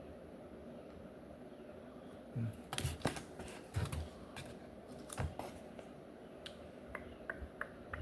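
Handling noise from comic books in plastic sleeves: a cluster of sharp clicks and taps about halfway in, then a few small quick ticks near the end.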